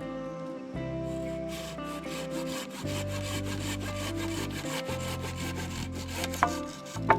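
Hand saw cutting wood in quick, even back-and-forth strokes over background music, with two sharp clicks near the end.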